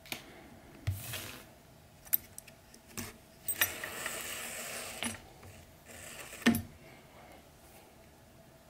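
Hand saddle-stitching a leather strap with needles and waxed thread: scattered light clicks and clinks of the needles and the brass buckle, and a drawn-out rasp of the thread pulled through the leather for about a second and a half near the middle.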